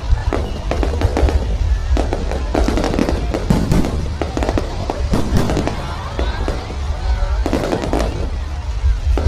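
Aerial fireworks bursting and crackling in quick succession, many sharp pops, over background music with a steady bass.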